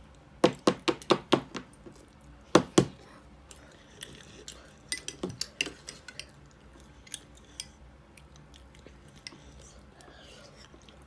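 Plastic toy dinosaurs knocking and tapping on a wooden tabletop: a quick run of about six sharp knocks about half a second in, two more just before the three-second mark, then lighter scattered taps.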